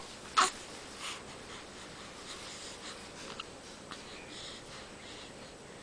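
A baby hiccuping once, a short sharp hiccup about half a second in, followed by faint soft rustling and breathing.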